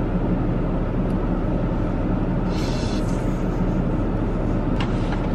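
Steady low rumble of a car heard from inside its cabin, with a short hiss about two and a half seconds in.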